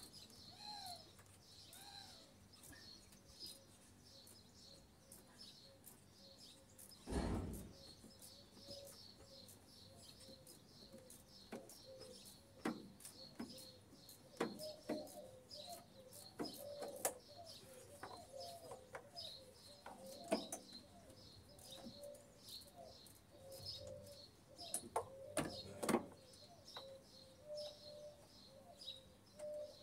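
Birds chirping steadily in the background, with scattered short clicks and knocks from hand work in a car's engine bay and one dull thump about seven seconds in.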